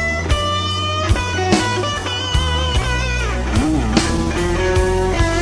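Blues-rock music: an electric guitar playing a lead fill of bent notes over drums and bass, with no singing.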